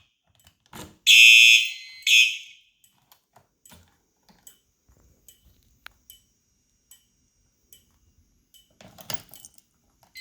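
Simplex 4903-9252 electronic fire alarm horn/strobe sounding the temporal code-3 pattern: one full blast about a second in and a shorter one just after, then the horn stops. After that only faint, evenly spaced ticks and a brief rustle near the end.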